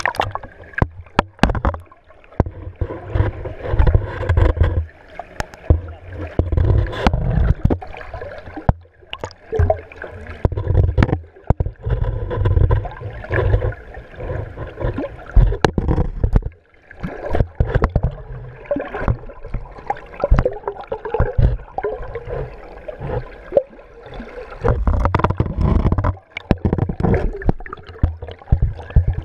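Muffled water sloshing and gurgling heard through a submerged GoPro Hero 3 Black's waterproof housing, with irregular knocks and bumps against the housing.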